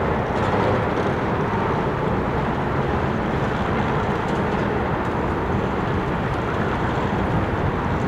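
Steady, unbroken urban traffic noise: a continuous low wash of vehicles running past, with no single vehicle standing out.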